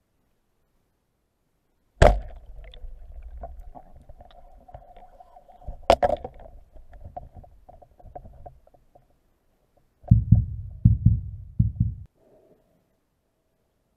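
Speargun shot heard underwater: a sharp crack about two seconds in, then rattling with a faint ringing while the speared fish is held on the shaft. A second sharp crack follows about four seconds later, and a run of low thumps comes near the end.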